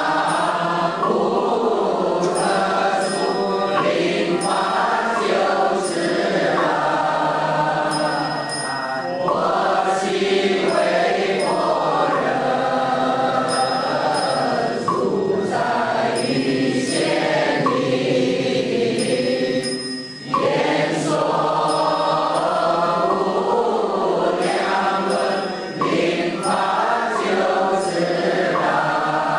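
Buddhist devotional chant sung by a group of voices, set to music, with a brief pause between phrases about two-thirds of the way through.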